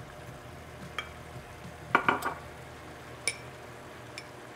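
A spoon stirring cornstarch and water in a small glass bowl, clinking against the glass a few times, loudest about two seconds in, over the steady low bubbling of the tofu sauce simmering in the pan.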